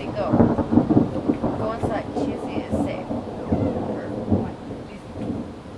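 Thunder rumbling and crackling, loudest in the first couple of seconds and fading toward the end.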